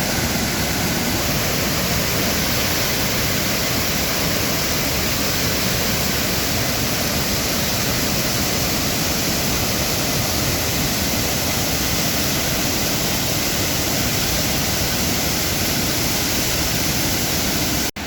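Steady rush of a fast-running river in full spate, the water noise even and loud; it cuts off suddenly at the very end.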